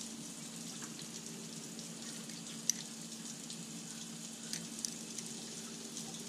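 A few faint metallic clicks as a ratchet and socket extension work on an outboard's anode bolt, the clearest about three seconds in. Under them runs a steady low hum with a hiss like running water.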